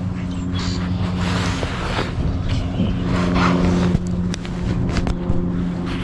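A motor drones steadily at a constant pitch, with some rustling and a few sharp clicks about two-thirds of the way through.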